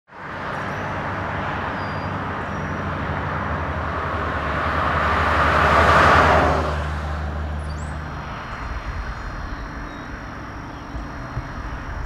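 A car driving along a highway at night: steady engine hum and tyre road noise, with another vehicle swelling past about halfway through and fading away.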